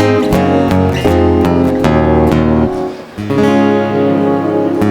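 A live band playing an instrumental passage led by a strummed acoustic guitar. The playing drops away briefly about three seconds in, then picks up again.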